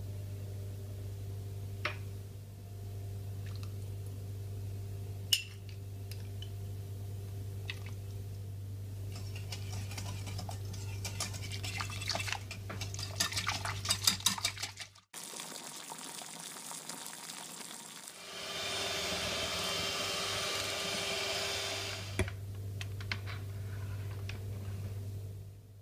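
A wire whisk clicking and scraping against a glass bowl as cream and powdered sugar are stirred, getting busier and louder about ten seconds in. After a short gap, an electric hand mixer whirs for about four seconds, whipping the cream. A low steady hum lies under the quieter stretches.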